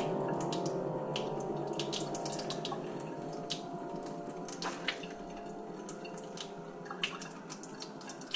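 Water hissing, with scattered drips and light ticks, under a steady hum of several held tones that slowly fades.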